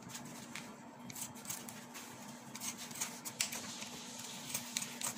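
Scissors cutting through a disposable baby diaper: irregular sharp snips mixed with the crinkle of the diaper's plastic backing being handled, over a faint steady hum.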